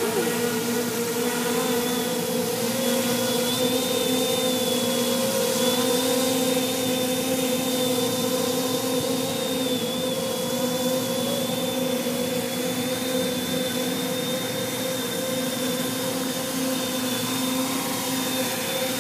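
Custom-built quadcopter's four brushless motors and propellers running at a steady pitch: an even buzzing hum with a thin high whine over a rushing hiss. The quad sits on the grass with its props spinning, then lifts off into a low hover near the end.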